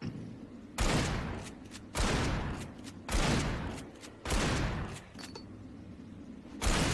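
Pump-action shotgun fired five times, about one shot every second and a bit, with a longer pause before the last. Each blast rings out, and short mechanical clicks of the pump being worked fall between shots.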